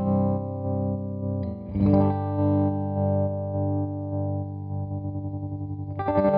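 Electric guitar chords ringing through a CopperSound Loma Prieta tremolo pedal in standard (amplitude) tremolo, the volume pulsing rapidly and evenly. New chords are struck about two seconds in and again near the end.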